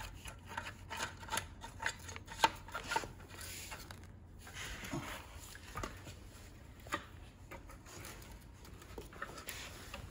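Handling noise of an electric scooter's plastic brake cable housing being fed through the deck and stem: rubbing and scraping with scattered clicks and knocks, the sharpest about two and a half seconds in.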